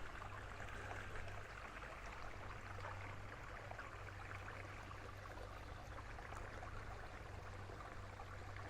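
Faint, steady sound of moving water at the shoreline, with a low steady hum underneath.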